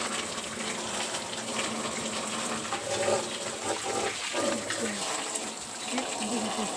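Water running steadily, with a few short pitched sounds over it partway through.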